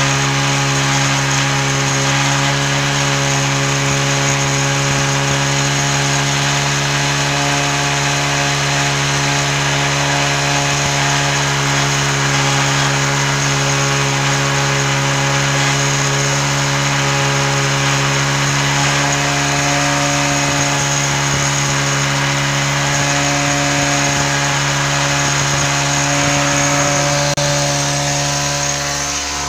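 Hero Honda CD100 SS single-cylinder four-stroke engine running at a steady speed. It dips slightly near the end.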